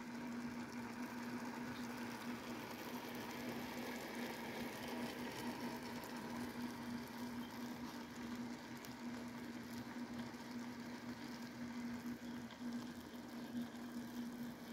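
Pieces of steak simmering in bubbling pan juices: a steady soft bubbling and sizzling, with a steady low hum underneath.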